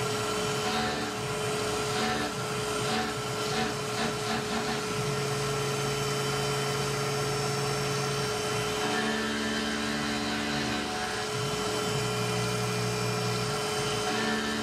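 Tormach PCNC 1100 CNC mill roughing a deep pocket in aluminium with an end mill under flood coolant: a steady spindle whine with coolant spray and chip clatter. Lower tones come in and drop out several times as the cut moves on.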